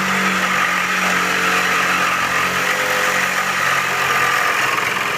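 Milwaukee M18 FUEL brushless Sawzall reciprocating saw running flat out as its blade cuts through steel pipe: a loud, steady cutting sound.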